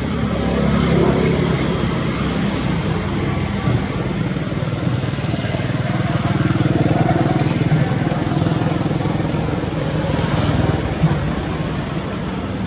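An engine running steadily, a low continuous hum.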